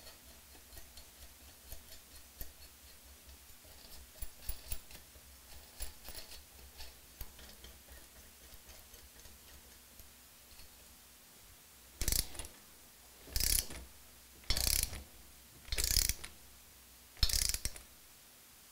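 Ratchet wrench working a socket on the cylinder-head nuts of an AeroVee engine, tightening them to seat the head. At first there are faint scattered clicks. Then, about twelve seconds in, come five ratcheting strokes a little over a second apart.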